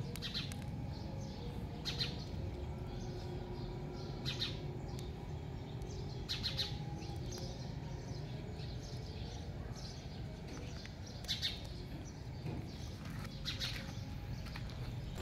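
Small birds chirping, short high chirps every two seconds or so with a longer pause in the middle, over a steady low outdoor rumble.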